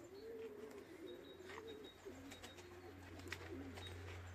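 Domestic pigeons cooing: low, rolling coos repeated one after another, thinning out after about three seconds, with faint high chirps behind.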